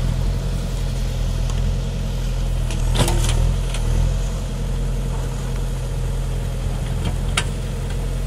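JCB backhoe loader's diesel engine running steadily while the rear backhoe digs, with a few sharp knocks, the loudest about three seconds in and another near seven seconds in.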